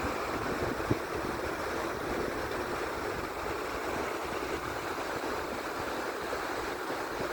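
Waterfall rushing steadily, with a brief sharp click about a second in.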